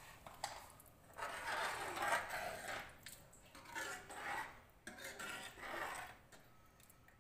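Metal ladle stirring thick curry in a large metal pot, rubbing and scraping the pot in about three or four strokes, each about a second long, with short pauses between them.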